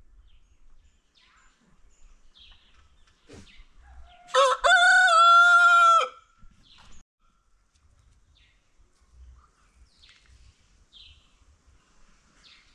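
A rooster crowing once, about four seconds in: a short first note and then a long held note, under two seconds in all and loud.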